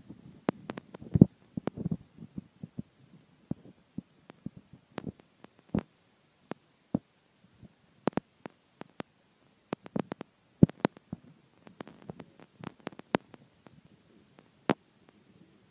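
Irregular sharp clicks and low knocks, scattered unevenly with short quiet gaps between them.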